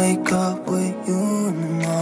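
Background music: a song with a melody moving from note to note.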